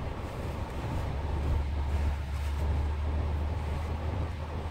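Jeep Wrangler's engine and tyres rumbling in the cabin as it drives over a mound of snow; the low rumble grows louder about a second in and holds steady.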